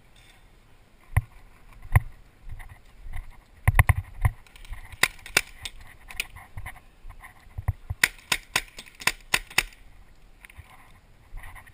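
Paintball markers firing: sharp single pops spaced out at first, a quick cluster of shots about four seconds in, then a rapid string of about eight shots, some five a second, in the last third.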